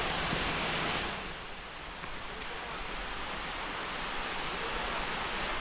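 Waterfall at a lake dam: a steady rush of falling water, a little louder for the first second and then dropping slightly.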